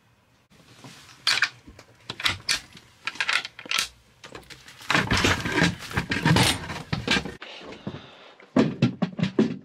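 Metal slide bolts on a wooden engine-room panel clicked open, then the panel lifted out and handled with knocks, clattering and scraping, loudest about five to seven seconds in, with a few more sharp knocks near the end.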